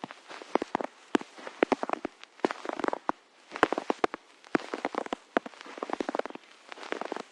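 Footsteps crunching in snow at a slow, steady walk, about one step a second. Each step is a quick cluster of crisp crackles as the snow packs underfoot.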